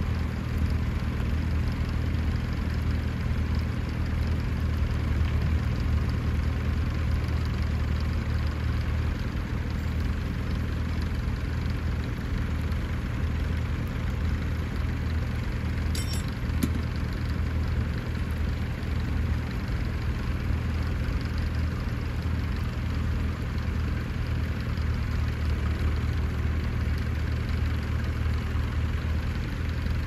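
Vintage tractor engine idling steadily, with a brief sharp click about halfway through.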